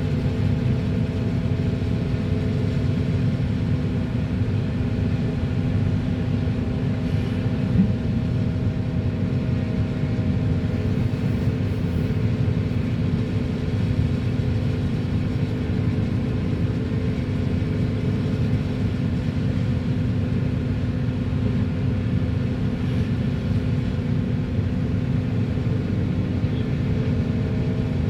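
Volvo EC480DL excavator's diesel engine running steadily: a low rumble with a constant hum. There is a single brief knock about eight seconds in.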